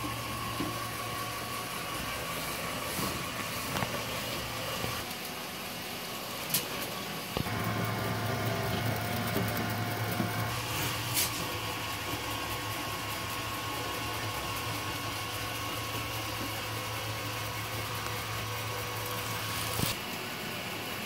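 Coasterdynamix plastic model roller coaster running: a steady electric motor hum from the lift drive, with light clicks and rattles from the train on the plastic track. The hum drops away for a couple of seconds about five seconds in, then comes back.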